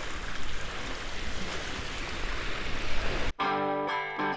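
Steady rushing noise of wind on the microphone for about three seconds, then background guitar music cuts in abruptly and replaces it.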